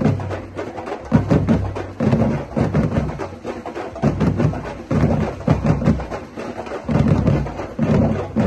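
Batucada drum ensemble playing: deep bass drums pulse in a repeating pattern about once a second under dense, fast strokes from higher drums and wood-block-like percussion.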